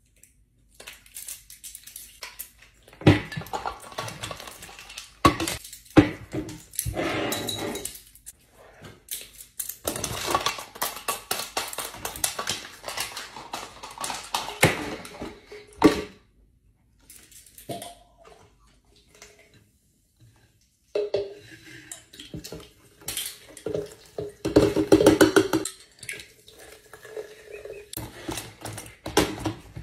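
Clattering and clinking of drink bottles, plastic packaging and ice cubes handled on a tabletop: irregular clusters of taps, knocks and rattles with short quiet gaps between them.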